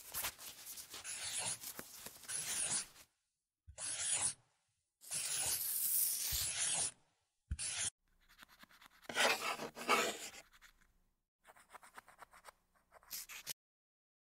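Pen scratching on paper while colouring in, in about six separate bursts of scribbling with short pauses between them, stopping near the end.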